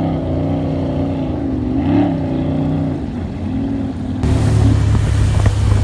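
Motorboat outboard engines running on the water, their pitch rising and falling. About four seconds in, the sound changes suddenly to a louder, rougher engine sound with more rushing noise.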